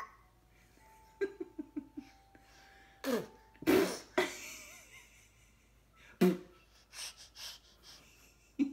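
A ten-month-old baby vocalizing: a quick run of about five short babbled syllables, then breathy squeals and grunts, the loudest about four seconds in.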